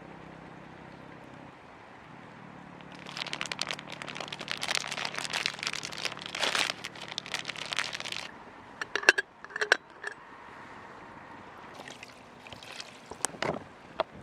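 Packaging crinkling and crackling as it is handled for about five seconds, then a few sharp metallic clinks and some scattered clicks.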